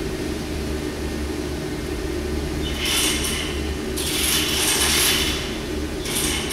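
Thin steel feeler gauge blade scraping as it is slid between a straight edge and an engine block deck, checking for warpage. It comes in short bursts of scraping starting a few seconds in, over a steady low shop hum.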